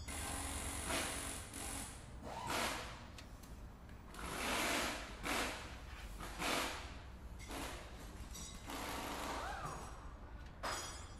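Die-cast toy car handled on a plastic playset: its wheels roll and it is set down on the plastic car lift, making a string of scraping and rattling noises.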